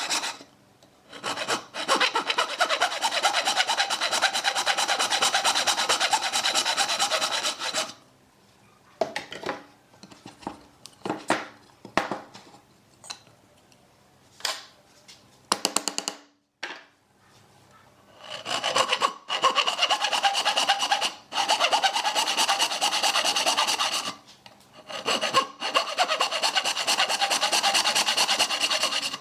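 Thin-bladed, wooden-framed hand saw cutting slots into the edge of a pine round, in long runs of quick rasping back-and-forth strokes. Through the middle stretch the sawing stops, leaving scattered short rubs and light knocks as the board is handled and brushed off, and then the sawing starts again.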